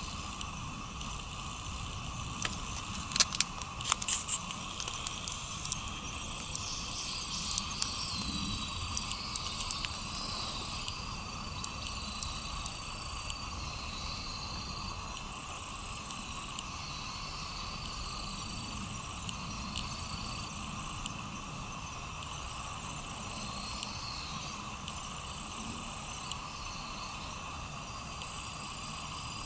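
Outdoor ambience: a steady high-pitched hum, short high whistles now and then, and scattered sharp clicks, most of them in the first ten seconds.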